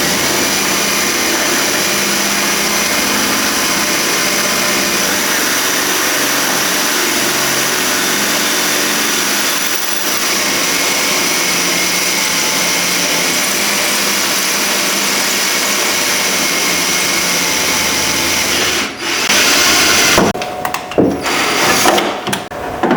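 Power drill with a 1/4-inch bit drilling out the rivets that hold a door handle, running steadily with a brief dip about ten seconds in. It stops briefly near the end and then runs again in louder, choppier bursts.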